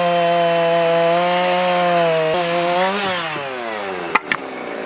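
Two-stroke chainsaw running at high revs, cutting through the cabin's log wall for a window opening. About three seconds in, the revs fall away as the throttle is released, and two sharp knocks follow near the end.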